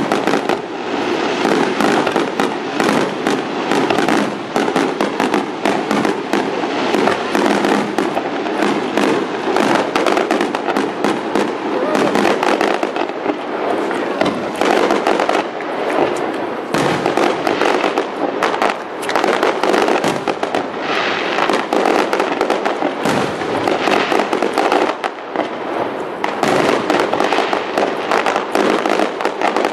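Fireworks display: a dense, unbroken barrage of shell bursts and crackling, the bangs coming several times a second.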